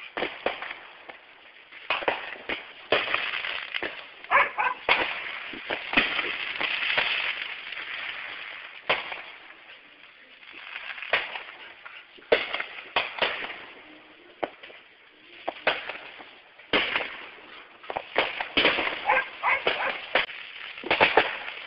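Consumer fireworks going off: repeated sharp pops and cracks in clusters, with stretches of crackling between them.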